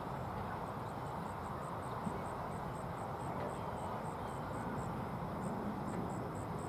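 Steady outdoor field ambience with low rumble, and over it a faint high chirping in short even pulses, about five a second, that pauses briefly near the end.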